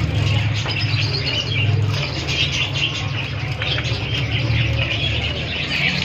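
Many small caged birds chirping together in quick, overlapping calls, over a steady low hum.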